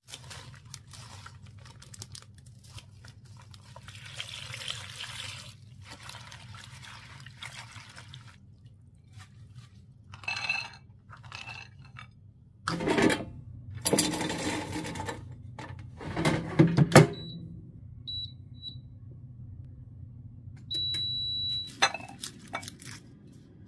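Food-preparation handling noise on a stone countertop. Pecans rattle and clatter as they are tipped out of a black container onto a ceramic plate, loudest in several bursts in the middle. Later comes the crackle of a garlic bulb being broken into cloves by hands in plastic gloves; a few short high beeps and one longer high tone sound near the end.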